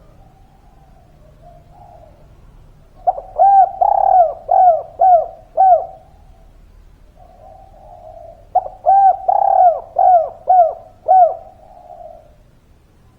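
Spotted dove cooing: two phrases, each a quick run of five or six short arched coos, with a soft murmur between the phrases.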